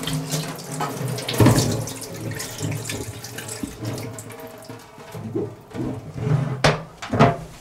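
Kitchen tap running into a stainless steel sink, with a couple of sharp knocks near the end.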